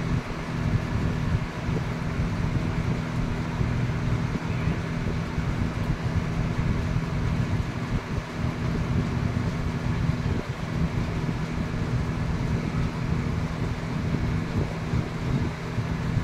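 Steady low machine hum with an even rushing noise over it, unchanging throughout.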